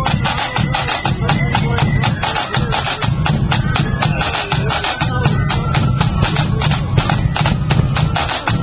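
Marching flute band playing: flutes carry a melody over quick, steady side-drum strokes and a bass drum beat.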